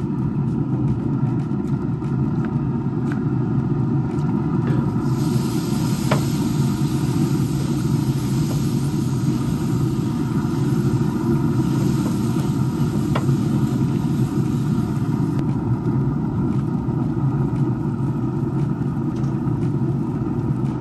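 A steady low rumble throughout. From about five seconds in until about fifteen seconds, a hiss rides over it as the water-dipped spiral-wound wire grill brush scrubs back and forth across the hot grill grates.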